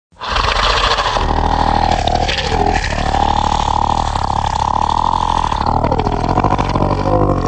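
A motor engine running loud, with a rumbling low end under a steady high whine; twice the pitch dips briefly and climbs back, as if the throttle is eased off and opened again.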